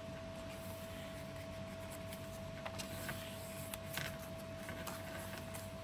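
Paper pages and envelope pockets of a handmade junk journal being handled and turned: soft rustling with a few light taps, over a steady faint hum.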